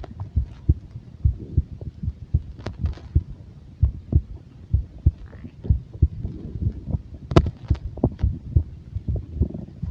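Stomach growling close up: a fast, irregular run of low gurgles and pops, with a few sharper clicks, the loudest about seven and a half seconds in.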